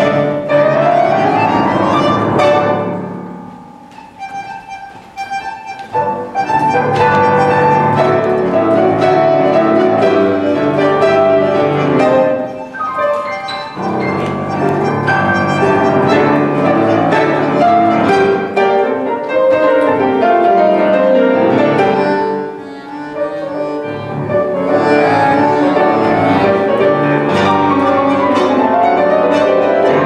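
Bandoneon and piano playing a milonga together. It opens with a fast sweeping run, drops to a quiet passage about three seconds in and builds back up by six seconds, with short breaks near the middle and about two-thirds of the way through.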